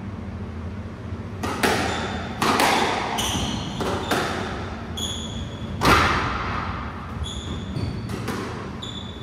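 Squash rally: the ball is struck by rackets and smacks off the court walls in a dozen or so sharp knocks at irregular intervals, the loudest about six seconds in. Short high squeaks of rubber-soled shoes on the wooden court floor come between the shots.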